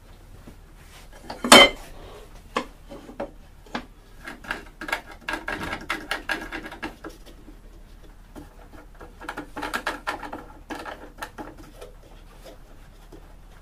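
Clattering knocks and scraping of wooden hive-box boards and a wooden assembly jig as its clamp knobs are tightened to squeeze the glued joints together, with one sharp knock about a second and a half in.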